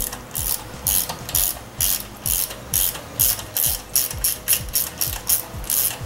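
Hand ratchet on a socket extension clicking in quick, regular back-and-forth strokes, about two to three strokes a second, while backing out a valve body bolt on a Ford 4R70W automatic transmission during teardown.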